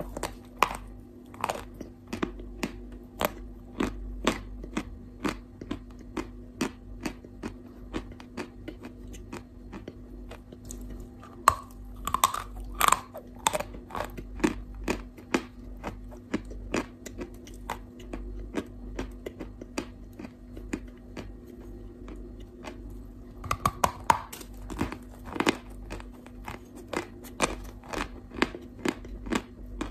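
Close-miked chewing and crunching of a mouthful of chalk block, with sharp crackling clicks about twice a second. Denser, louder bites come about twelve seconds in and again around twenty-four seconds.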